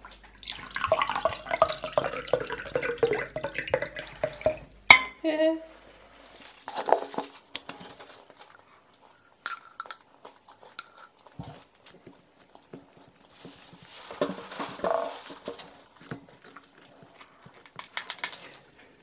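Breakfast table sounds: a table knife scraping as Nutella is spread on a bread roll, with cutlery and dishes clinking. A sharp clink about five seconds in is the loudest sound.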